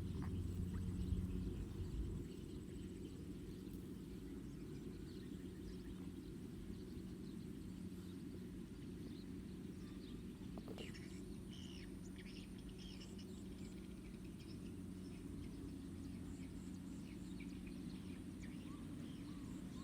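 Quiet outdoor ambience: a steady low hum and rumble, with a few faint bird chirps about halfway through.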